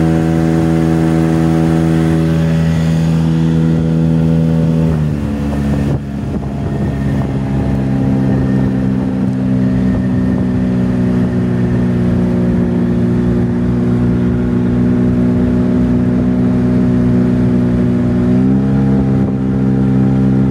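Outboard motor running steadily under way, throttled back about five seconds in to a lower, steady pitch, then opened up slightly near the end.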